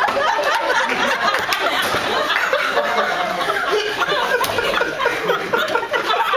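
A small group of people laughing loudly together, many voices overlapping without a break.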